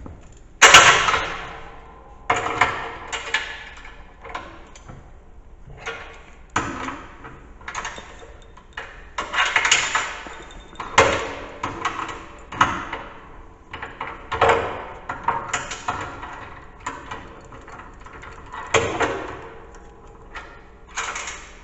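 Irregular metal clanks and knocks from hand tools and steel parts being handled, about a dozen in all, each ringing briefly and fading.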